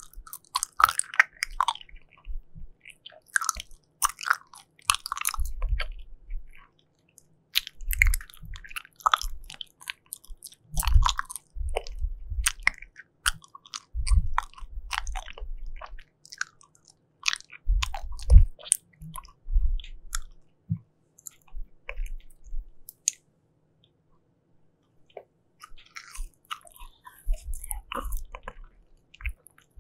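Close-miked chewing of soft jelly, with wet, sticky mouth clicks and smacks coming in irregular bursts. There is a silent pause of about two seconds a little past two-thirds of the way through.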